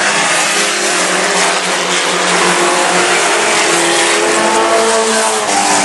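Engines of racing mini trucks running at speed together, a steady drone with slowly shifting pitch under a heavy hiss.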